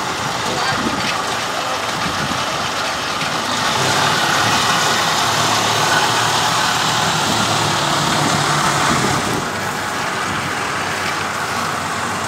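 Engine of a small tracked farm vehicle running steadily, getting louder from about three and a half seconds in and easing back after about nine seconds as it moves along the bank.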